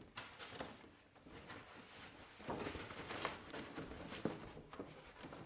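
Sheets of handmade paper rustling and shuffling as they are gathered up and packed away, with a few short, sharper crinkles.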